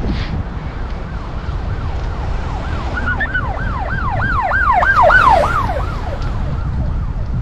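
Emergency siren in yelp mode, its pitch sweeping quickly up and down about three times a second; it swells in the middle for a few seconds and then fades. Under it is a steady rumble of wind on the microphone from riding downhill on a bicycle.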